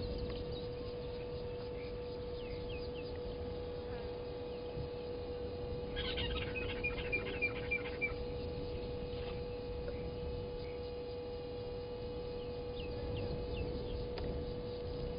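Birds calling at a waterhole, with a quick run of short, high, repeated notes about six seconds in lasting two seconds, and faint scattered chirps elsewhere. A steady electrical hum runs under it all.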